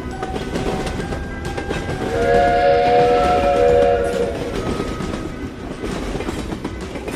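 Train running on rails with a steady rumble, and a train horn sounding one chord for about two seconds in the middle.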